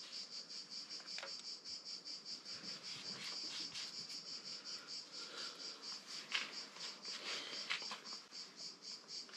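A cricket chirping steadily in rapid, even pulses of a high tone, about five a second. A few faint clicks come through about a second in and again around six and eight seconds in.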